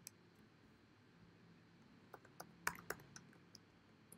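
Faint computer keyboard typing: a quick run of key clicks a little past two seconds in, with a couple of single clicks around it.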